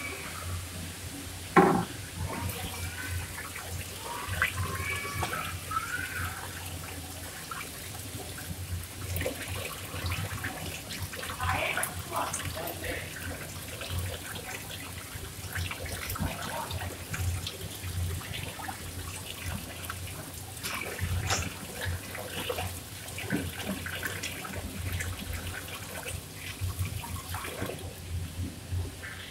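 Busy kitchen work: dishes and utensils clinking and knocking, with one sharp clank near the start, water running, faint voices and a steady low hum.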